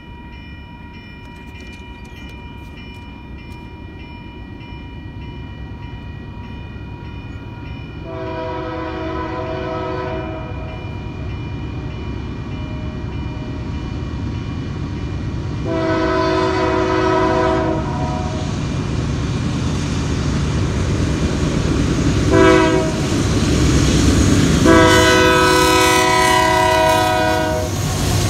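An approaching freight locomotive sounds the grade-crossing signal on its multi-note air horn: long, long, short, long. The engine and wheel rumble grow steadily louder as it nears, and the crossing bell rings steadily at first.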